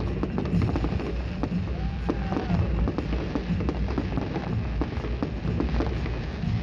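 A fireworks display going off in quick succession: many sharp bangs and crackles over a continuous low rumble of bursts, with a few faint whistles.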